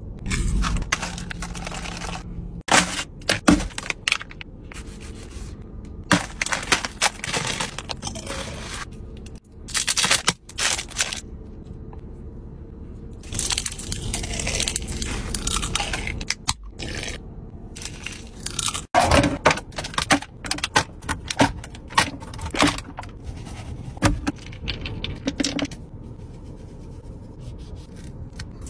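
Close-up food handling and eating sounds: irregular crackles, scrapes and crunches, with sharp clicks and short noisy bursts coming and going.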